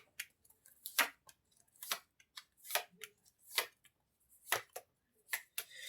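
Tarot cards being handled and laid out: a series of short, light snaps and taps, about one a second.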